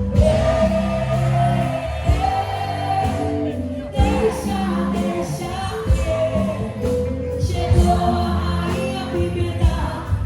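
A song with a sung melody over bass and drums, with heavy low hits about every two seconds.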